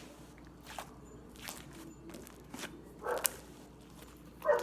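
White slime being handled and kneaded: faint soft squishes and a few scattered small clicks.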